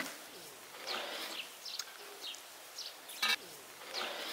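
Small birds chirping in short, downward-sliding calls, with one sharp knock about three seconds in.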